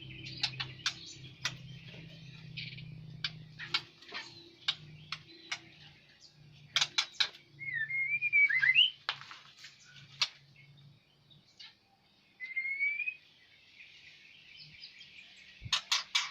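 Pekin robins (red-billed leiothrix) in an aviary giving many sharp, quick chirps, with a few short rising whistled notes in between. A low steady hum runs underneath, plainest in the first few seconds.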